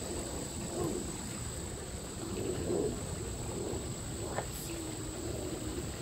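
Steady high-pitched insect trilling, with faint, irregular low sounds beneath it.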